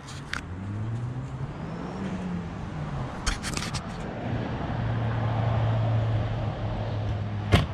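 A vehicle engine running, its pitch rising and falling at first and then holding a steady hum. A few clicks come a little past three seconds in, and a sharp knock sounds near the end.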